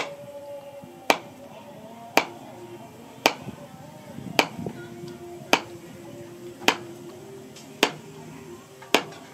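Sharp knocks about once a second, nine in all, as the butt of a bamboo knife handle is struck down on a steel stake anvil to drive the handle onto the blade's tang. Background music plays under the knocks.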